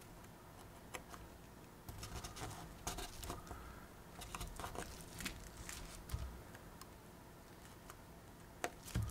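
Faint, scattered taps, clicks and rustles of a printed card paper-model kit being handled and worked by hand, busiest between about two and six seconds in, with a sharper click near the end.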